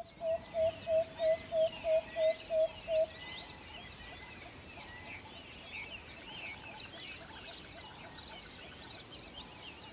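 A loud series of about ten short, low whistled calls, about three a second, that stops about three seconds in. Small birds chirp and twitter faintly behind it.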